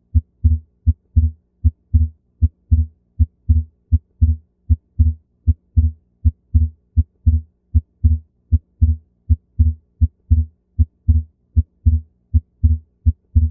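Recorded heart sounds: a regular run of lub-dub beats, short low thuds about three a second, over a faint steady hum. The second heart sound (S2) is split, the two alike valve closures coming slightly apart. This is the sign of delayed pulmonary valve closure, physiological on inspiration or fixed in an atrial septal defect.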